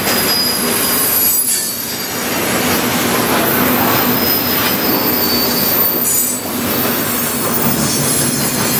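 Freight cars of a CN train rolling past at close range, steel wheels clattering on the rails under a continuous rumble. Thin, high-pitched wheel squeal comes and goes over the noise, and the sound eases briefly twice.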